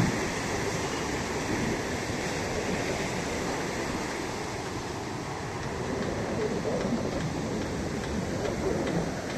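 Ocean surf as a steady rush of washing water, with no single breaking wave standing out; the level eases off slightly near the middle and swells back a little later.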